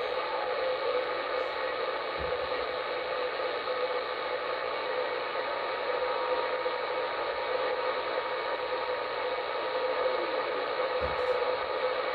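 Single-sideband CB radio receiver on channel 38 putting out steady static hiss from the open 11-metre band, with a faint steady whistle running through it and no station coming through.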